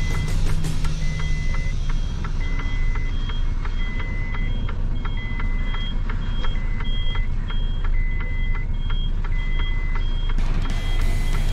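Tractor-trailer reversing alarm beeping in a steady repeating pattern over the low, steady running of the truck's diesel engine, heard from inside the cab.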